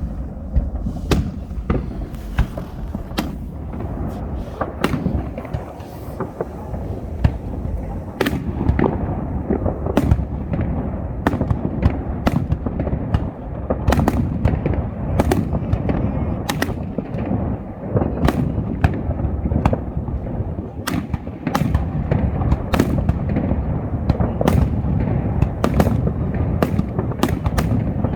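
Aerial fireworks display: a rapid, continuous run of bangs and crackling shell bursts over a constant low rumble of booms.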